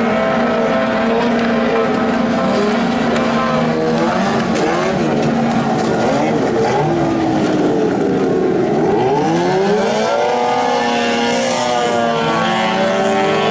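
Engines of several racing boats running flat out at once, their pitches sliding up and down and crossing as the boats pass and turn, with one dipping and then climbing steeply about nine to ten seconds in.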